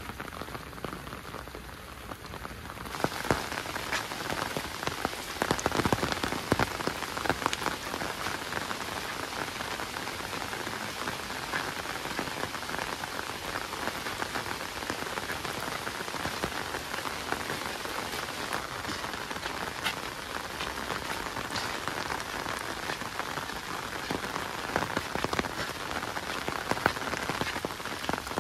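Heavy rain falling steadily, with sharp taps of individual drops landing close by. About three seconds in it becomes louder and fuller.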